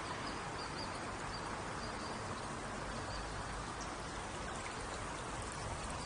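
Steady rushing of flowing stream water, with a faint high chirping over it in the first half.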